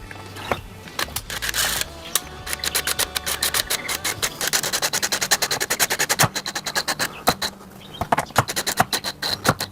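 Rapid, repeated small clicks and scrapes of metal door-latch hardware being screwed into the door edge by hand, densest in the second half.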